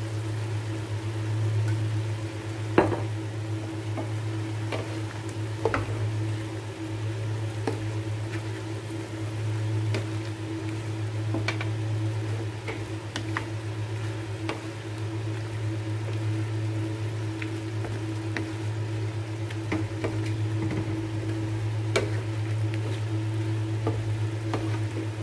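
Shrimp and vegetables cooking in a wok with a faint sizzle, while a spatula stirs them and knocks and scrapes against the pan in scattered clicks, the loudest about 3 s in. A steady low hum runs underneath.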